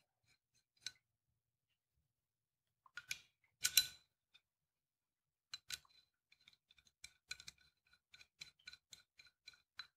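Small steel parts clicking and clinking as gear studs and slot nuts are fitted loosely into a slotted steel bar. A few separate clicks come first, then a quick run of light metallic ticks with a faint ring, about three or four a second, over the last few seconds.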